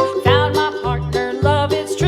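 Upbeat children's background music with a steady bass beat.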